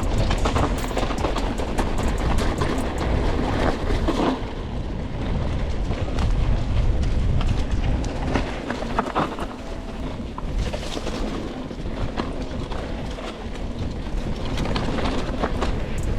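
Mountain bike rolling over a rough dirt trail, picked up by a camera on the bike: a steady low rumble with many small rattles and knocks from the bike over the bumps.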